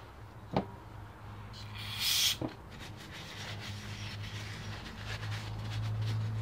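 Hands wiping small carburetor parts with a paper towel: soft rubbing and rustling, a small part clicking on the table twice, and a brief hiss about two seconds in. A low steady hum comes up from about five seconds in.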